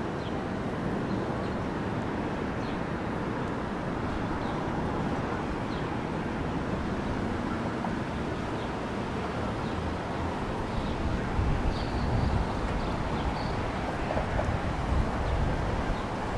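Steady outdoor ambience of wind on the microphone, its low rumble gusting louder in the second half, with a few faint short ticks.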